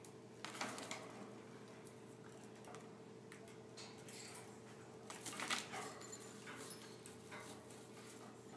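A parrot in a plastic post-surgery cone collar clambering about a wire cage: scattered scrapes, taps and clatters of claws, beak and collar against the bars and perch, loudest about five seconds in. A steady low hum runs underneath.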